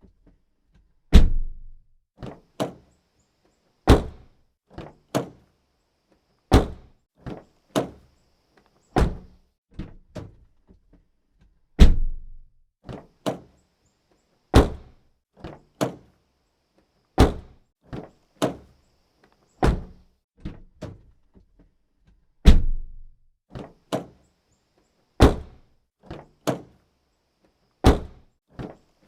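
Car door shut again and again, about every two and a half seconds, eleven times: each a heavy thunk followed by two lighter clicks.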